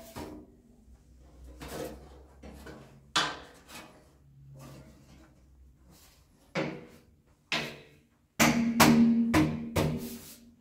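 Knocking and clattering of objects being handled: scattered sharp knocks, then a dense run of clattering about eight seconds in.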